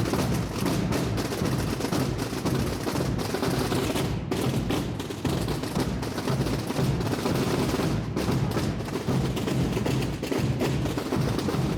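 Massed Holy Week tamborada: many drums and bass drums beating together in a dense, unbroken roll.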